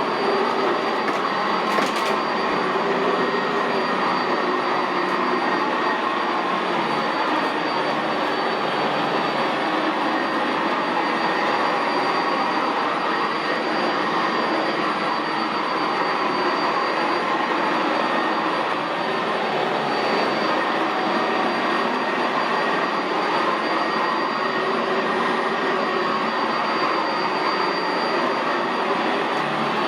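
Sanitaire SC679J commercial upright vacuum running steadily over carpet: a constant motor whine and airflow rush with a faint high tone on top. A brief click about two seconds in.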